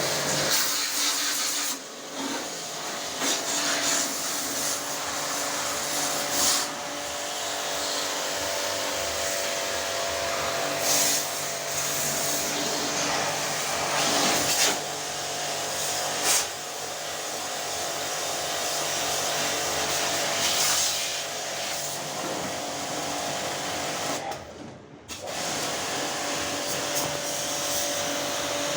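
Electric pressure-washer pump running steadily, its water jet hissing as it sprays the air conditioner during a deep clean. It cuts out briefly near the end and starts again.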